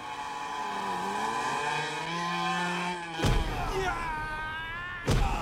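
Small motorcycle engine revving, its pitch rising and dipping, then a heavy thud about three seconds in after which the engine note falls away, and a second thud near the end.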